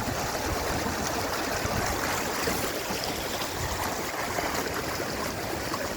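Rainwater running fast and steady down a drainage channel in a flooded pasture, a continuous rushing noise.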